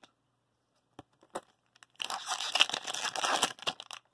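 Red plastic wrapper of a 2019-20 Tim Hortons hockey card pack crinkling as it is handled and torn open. A few faint clicks come first, then a dense burst of crinkling starts about two seconds in.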